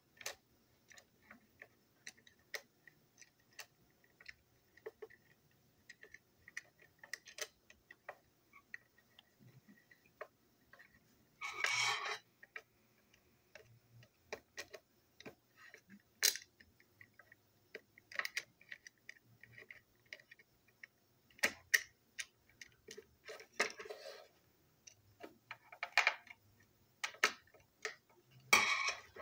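Small screwdriver and plastic toy parts handled during reassembly: scattered light clicks and ticks of plastic on plastic and metal, with a few short scraping sounds, one about a third of the way in and another near the end.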